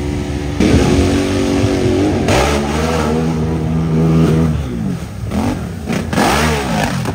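Off-road ATV engine revving hard while plowing through a mud hole. The revs change abruptly about half a second and two seconds in, then rise and fall repeatedly near the end.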